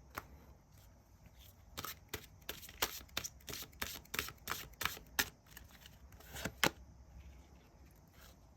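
Tarot cards being shuffled and handled: a run of quick, irregular card snaps and taps lasting a few seconds, with the loudest snap near the end.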